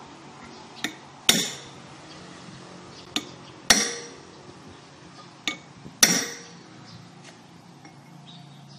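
Hammer striking a steel punch held against a fastener on a truck's wheel hub, staking it so it won't work loose as the wheel turns. There are three hard, ringing blows about two and a half seconds apart, each after a lighter setting tap.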